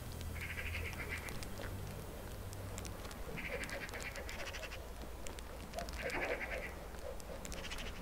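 Eurasian magpie chattering: four harsh, rapid rattling calls of about a second each, over a steady low rumble.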